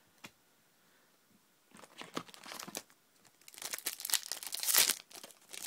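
Foil Pokémon booster-pack wrapper crinkling and being torn open, in rustling bursts that start about two seconds in and are busiest and loudest near the end.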